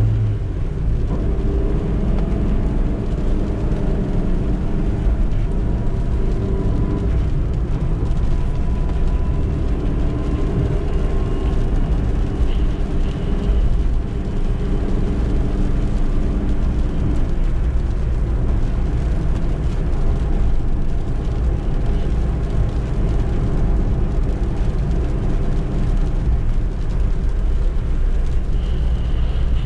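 Suzuki Eeco's 1.2-litre four-cylinder petrol engine running steadily while driving, over a constant low road rumble.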